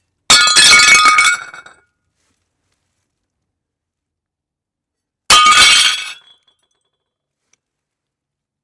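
Glass shattering twice: a sudden crash about a third of a second in, then another about five seconds later, each dying away within about a second and a half.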